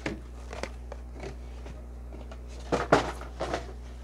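Cardboard product boxes being handled on a table: scattered light taps and scrapes, with a cluster of sharper knocks about three seconds in, over a low steady hum.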